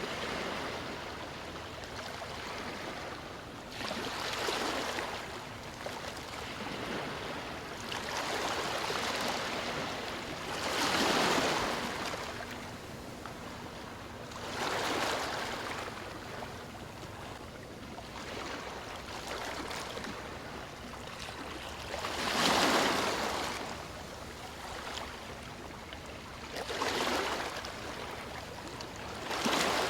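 Water rushing and splashing in a steady murmur that swells into louder surges every few seconds.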